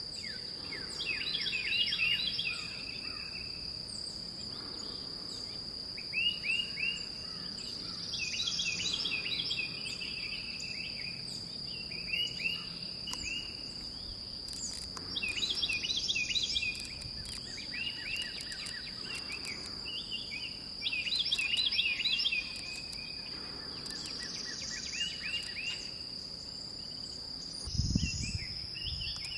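Outdoor chorus of insects holding one steady high-pitched drone, while a songbird sings a phrase of quick downward-slurred notes every few seconds. A brief low bump sounds near the end.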